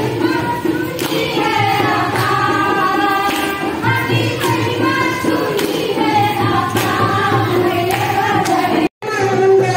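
Women's voices singing a Hindu devotional song (bhajan) together, with regular hand claps keeping the beat. The sound drops out briefly near the end.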